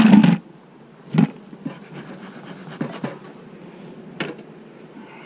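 Bee smoker's bellows puffing smoke into a hive in short whooshes: a loud puff at the start, then a few shorter ones.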